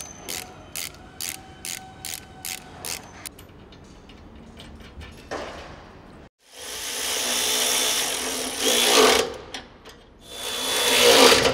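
Ratchet wrench clicking in a steady rhythm, about two and a half clicks a second, as the bolts holding the radar sensor to its mounting bracket are tightened. Then a power tool runs louder in two stretches of a couple of seconds each.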